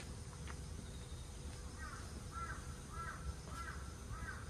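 A crow cawing five times in a quick, even series, starting about two seconds in, over a low steady background rumble.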